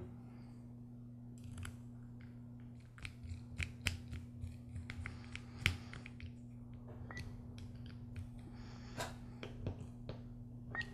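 Screwdriver driving the small screws that fasten the throttle body onto a trimmer carburetor: a scattered run of light clicks and scrapes as the tip turns in the screw heads, over a faint steady hum.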